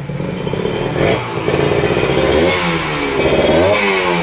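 Two-stroke motorcycle engine being revved: it runs, then rises and falls in pitch twice in quick blips of the throttle in the second half.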